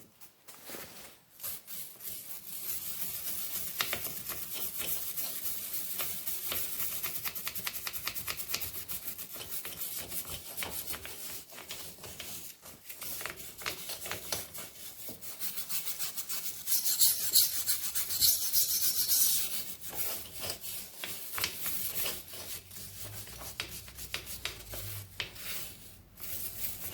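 Rapid, continuous scrubbing strokes on a VW Type 1 aluminium cylinder head, working carbon deposits off the combustion chambers. The scrubbing grows louder and harsher for a couple of seconds about two-thirds of the way through.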